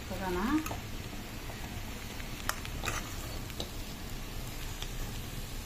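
Spiced chicken pieces sizzling as they fry down in oil in a black kadai, nearly done, with a few sharp clicks of a metal spatula against the pan.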